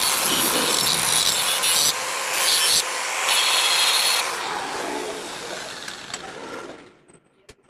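Angle grinder with a thin disc grinding a strip of car leaf-spring steel, throwing sparks. The grind gets louder in two spells, then the disc is lifted off and the grinder winds down to near silence over a few seconds, with a small click near the end.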